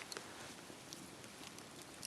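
Wood bonfire crackling: a steady hiss broken by irregular sharp pops.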